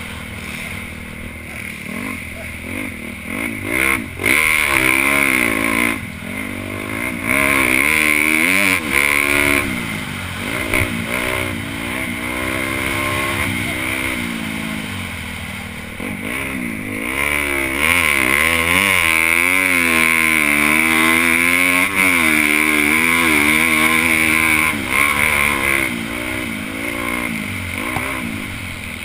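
Honda CRF250 single-cylinder four-stroke motocross engine with a Yoshimura exhaust, ridden hard on a dirt track. Its pitch rises and falls over and over with throttle and gear changes, and it is loudest in two long full-throttle pulls.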